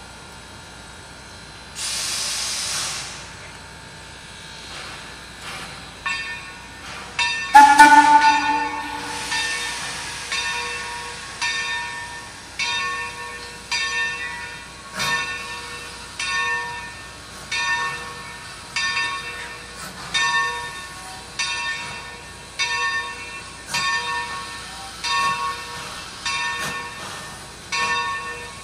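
Steam locomotive Tremont & Gulf #30: a one-second hiss of steam about two seconds in, then a short blast on its whistle, the loudest sound, that sags in pitch as it cuts off. From about six seconds on its bell rings steadily, about one strike a second.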